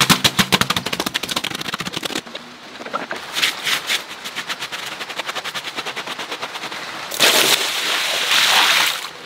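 Rapid, even scrubbing strokes, about ten a second, of a hand brush on a wet, soapy plush toy, pausing briefly about two seconds in. Near the end a stream of water gushes over the toy for about two seconds.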